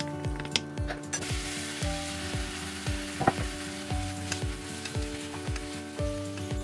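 Garlic and aged kimchi stir-frying in perilla oil in a nonstick pan: a steady sizzle from about a second in, with a wooden spoon stirring and one sharp knock about halfway. Background music with a steady beat plays underneath.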